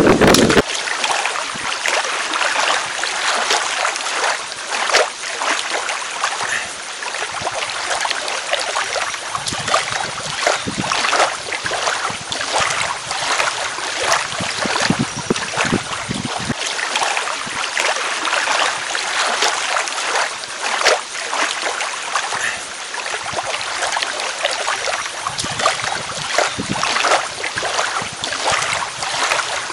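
Water splashing and lapping, a steady run of small irregular splashes.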